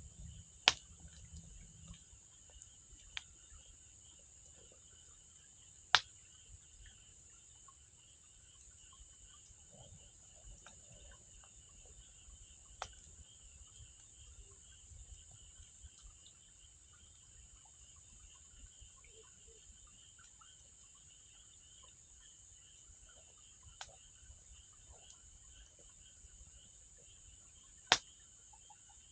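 Wood fire burning with occasional sharp pops, six in all, the loudest about a second in, about six seconds in and near the end. Steady insect chirring, like crickets, underneath.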